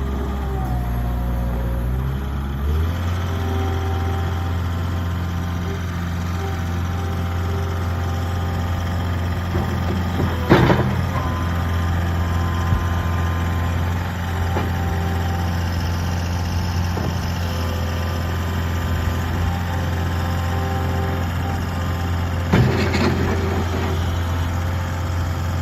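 2011 Case SR150 skid steer loader's diesel engine running steadily, its speed stepping up slightly about three seconds in. Two sharp knocks, about ten seconds in and again near the end.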